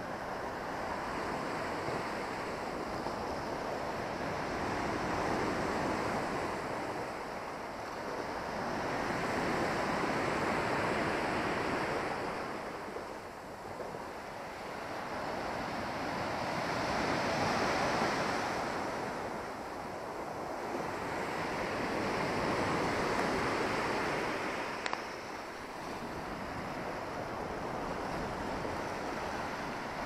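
Black Sea waves breaking and washing over a pebble beach. The surf swells and ebbs about every five to six seconds, with one brief click late on.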